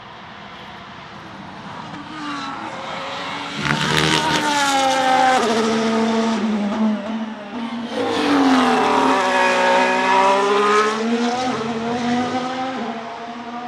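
Ferrari F1-75 Formula 1 car's turbocharged 1.6-litre V6 hybrid engine at racing revs on track, its pitch falling and rising as it goes through the gears. It has two loud peaks, about four seconds in and from about eight to eleven seconds, then fades.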